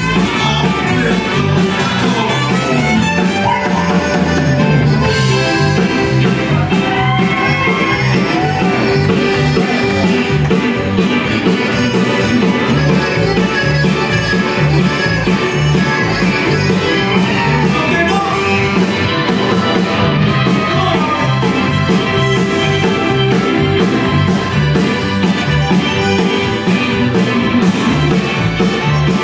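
Tex-Mex band playing live: electric guitar, accordion, trumpet, keyboard, bass and drums over a steady beat.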